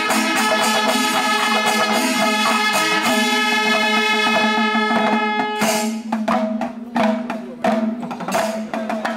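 Kombu, the curved brass horns of a Kerala temple ensemble, sounding one long held note together. About five and a half seconds in, drums and small hand cymbals break in with a quick struck rhythm while the horn tone carries on underneath.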